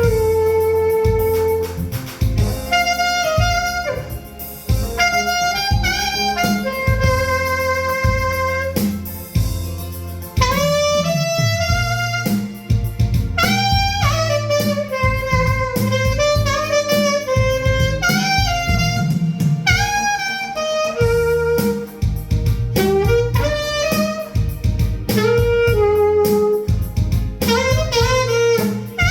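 Saxophone playing a song melody with slides between notes, over a backing track with bass and guitar.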